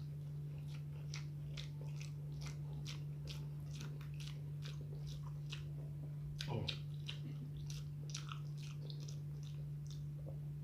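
Close-miked chewing of a mouthful of spicy eggplant and omelette, wet smacking clicks at about three chews a second, with one louder mouth noise just past the middle.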